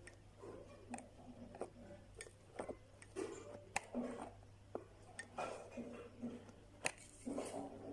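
Light, irregular clicks and soft knocks of small parts being handled during an electric mixer repair, over a steady low hum.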